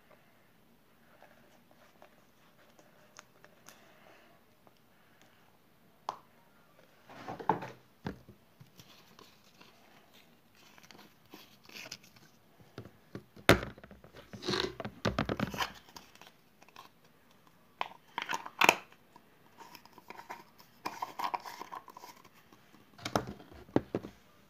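Close-up handling noises of small objects: irregular rustling, crinkling and scraping with sharp clicks, coming in several separate bursts.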